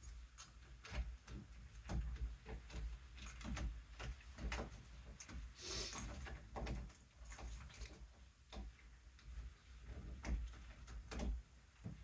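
Irregular clicks, taps and light metal rattles of a door knob set being handled and fitted into a door, with a brief scrape about halfway through.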